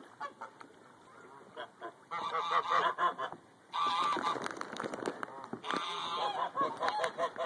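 Greylag geese honking, several birds calling over one another. The calling is sparse at first, comes in a loud burst about two seconds in, breaks off briefly, then goes on loudly through the second half.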